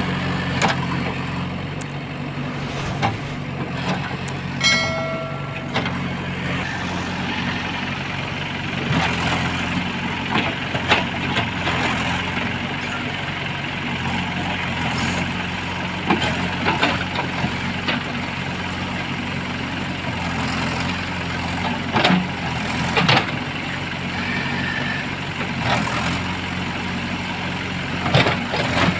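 JCB backhoe loader's diesel engine running steadily, with repeated knocks and clanks throughout. A brief pitched tone sounds for about a second around five seconds in.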